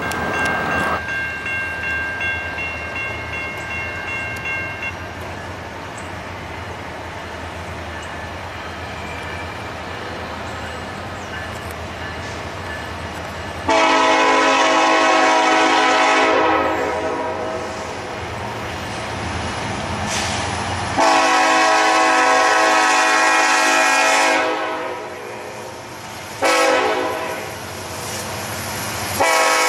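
Horn of a Norfolk Southern EMD SD70ACe locomotive leading a freight train, sounding the grade-crossing signal: two long blasts, a short one, then the start of a final long blast near the end. A low rumble comes before the first blast.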